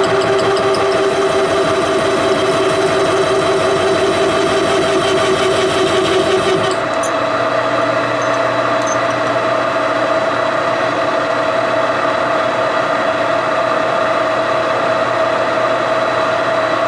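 Metal lathe running through a cut-off (parting) cut, a steady machine sound with a steady whine. About seven seconds in, one tone of the cut and the higher hiss stop and the sound drops a little, while the machine keeps running. It shuts down at the very end.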